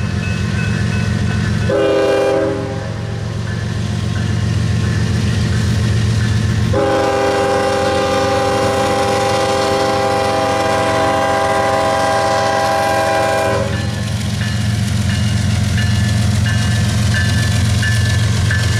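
Norfolk Southern GE ES44DC diesel locomotive leading a freight train over a grade crossing, its engines throbbing under load. The horn sounds a short blast about two seconds in, then a long blast of about seven seconds. Near the end a crossing bell rings faintly and steadily.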